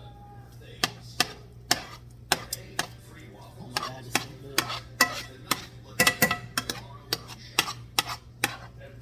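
A utensil scraping and knocking against the inside of a cooking pot to get out the leftovers, with sharp, irregular clicks about two or three times a second, busiest about six seconds in.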